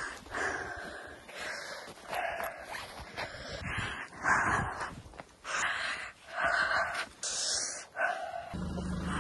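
A person breathing fast and heavily, rough in-and-out pants about two a second. About eight and a half seconds in, a car engine's steady low hum comes in.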